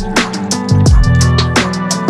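Background music with a fast electronic beat: deep kick drums, crisp hits about five times a second, and held synth chords.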